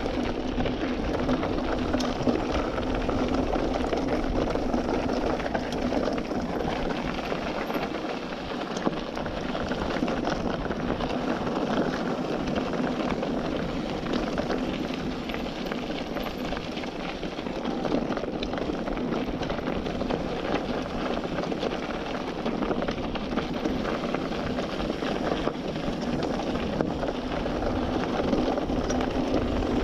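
Steady rushing noise of riding a bicycle, wind on the microphone mixed with tyres rolling over the ground.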